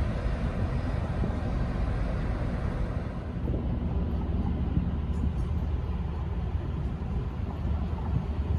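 Steady low rumble of trains at a station, with a train drawing in slowly from a distance.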